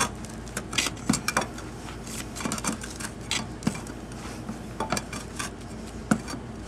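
Irregular metal clinks, taps and scrapes of a hand tool against the stainless steel band clamps of a rubber Fernco coupling on a 3-inch drain pipe, over a steady low hum.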